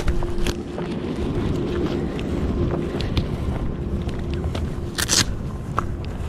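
Footsteps on a gravel dirt road with scattered clicks of trekking-pole tips striking the ground, over a steady low rumble. A brief scraping rustle comes about five seconds in.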